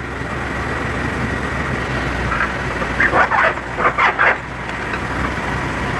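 Tata Hitachi EX110 excavator's diesel engine running steadily as the machine works its way off a truck's trailer, with a few short, sharp higher-pitched sounds about three to four seconds in.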